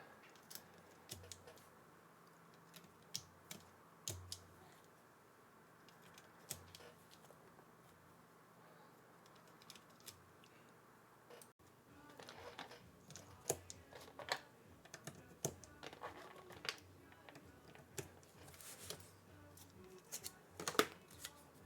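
Akko Mirror mechanical keyboard switches being pressed one by one into a carbon-fibre plate and hot-swap board: faint, scattered sharp clicks and snaps, coming more thickly in the second half.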